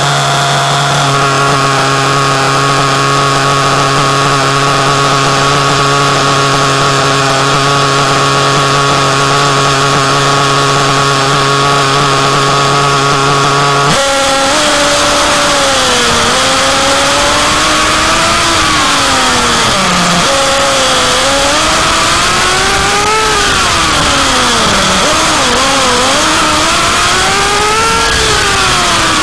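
Small single-cylinder nitro glow engine of a Kyosho Inferno MP9 1/8-scale RC buggy, heard loud and close. For about the first fourteen seconds it runs at a steady pitch, then its pitch rises and falls again and again as the throttle is opened and backed off while the buggy drives.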